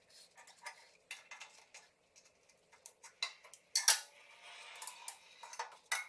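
Irregular metallic clinks and clatter of hand tools and steel transmission parts being handled, with one louder clank about four seconds in.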